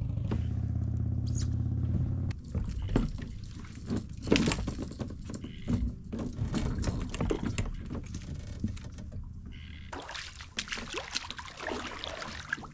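A small boat motor running steadily, then cutting off about two seconds in, followed by irregular knocks, clunks and clatter, with a rougher scraping stretch near the end.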